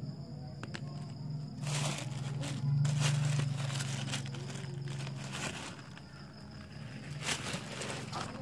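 Plastic sack crinkling and rustling in bursts as wet rough black opal stones are handled in it, over a steady low hum.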